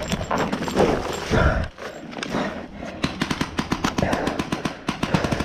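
Paintball markers firing: scattered pops, then a fast, steady string of shots through the second half. Louder rustling thumps near the microphone come in the first second and a half.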